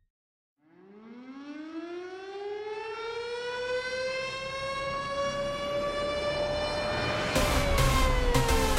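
Air-raid-style siren sound on an electronic music track, winding up slowly in pitch after a moment of silence. Near the end drum hits and a heavy electronic beat come in, and the siren starts to wind down.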